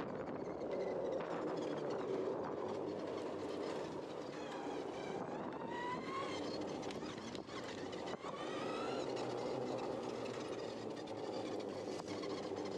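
Spartan electric ATVs riding over dirt tracks: a steady rumble of tyres and wind, with the electric motor's whine rising a couple of times as the ATV speeds up, about five and eight seconds in.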